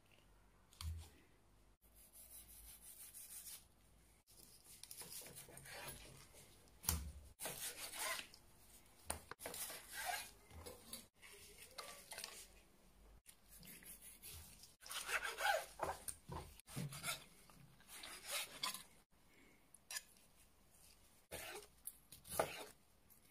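Food-prep sounds of a raw octopus being handled and cut: wet rubbing and scraping of the octopus, and a knife slicing through the tentacles onto a plastic cutting board, with a few sharp knocks near the end. The sounds come in short stretches that change abruptly every couple of seconds.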